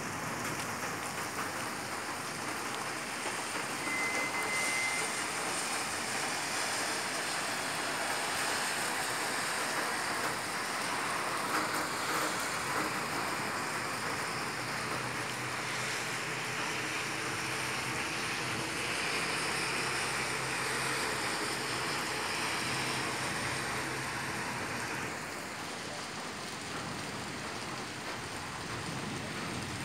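Thunderstorm rain falling steadily, an even hiss, a little quieter for the last few seconds.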